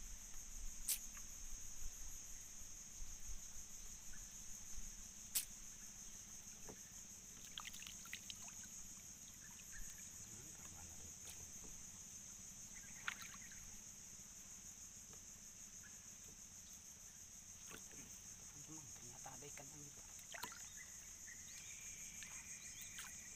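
Steady high-pitched insect chorus, like crickets trilling, with a few sharp clicks and small knocks.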